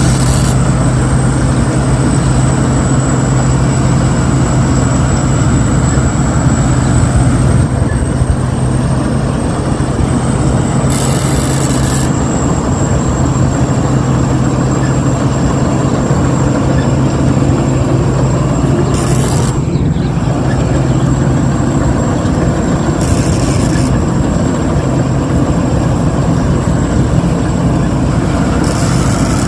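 Rice combine harvester (Thai-built 'Chao Phayu Thornong' by Thai Seng Yont) running steadily while harvesting, a loud even engine drone with a thin steady high whine above it.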